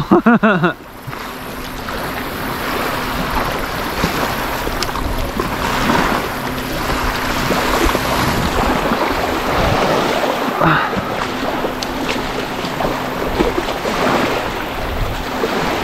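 Wind rushing on the microphone and small waves washing on a lake beach, a steady noisy rush with a faint low hum under it.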